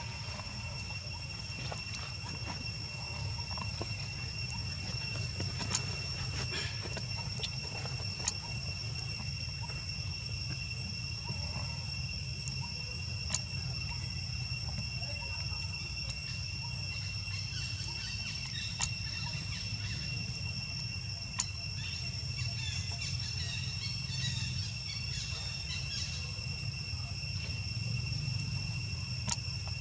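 Insects trilling steadily in a high, unbroken drone over a low outdoor rumble, with a few short sharp clicks scattered through.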